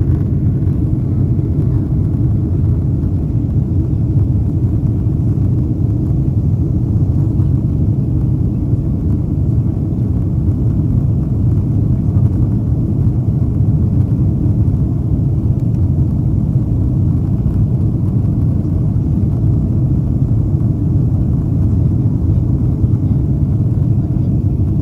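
Steady low drone of a Boeing 767's jet engines and rushing air, heard inside the passenger cabin as the airliner climbs out after takeoff.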